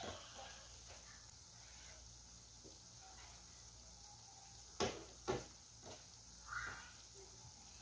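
Strips of onion-stick dough frying in oil over a low flame: a faint, steady sizzle, with two sharp clicks about five seconds in and a fainter one soon after.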